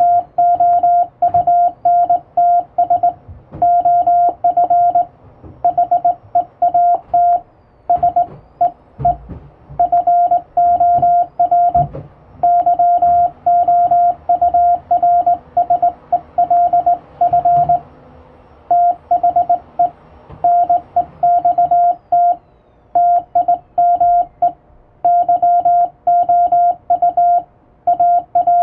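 Morse code sent by hand on a straight key: a single steady beeping tone keyed on and off in short dots and longer dashes, with brief gaps between characters and words. A couple of low thumps come about nine and twelve seconds in.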